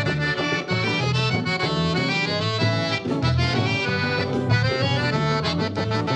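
Gaúcho regional band playing the instrumental introduction of a tranco, led by accordion melody over a rhythmic bass accompaniment.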